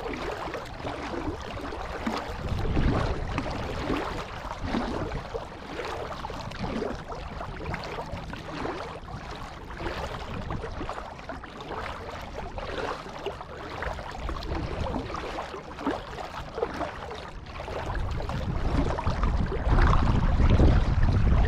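Kayak paddle dipping and water splashing against the hull, in irregular strokes about a second apart. A low wind rumble on the microphone builds near the end.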